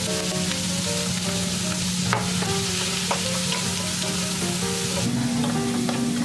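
Raw minced pork sizzling as it stir-fries in a large non-stick wok, stirred with a spatula that scrapes and knocks against the pan a couple of times.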